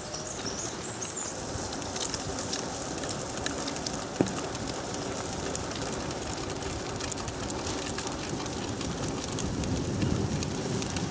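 Dog scooter rolling on wet pavement behind two running dogs in harness: a steady hiss of wheels on the wet road, the patter of the dogs' paws and scattered small clicks from the rig, with one sharp knock about four seconds in.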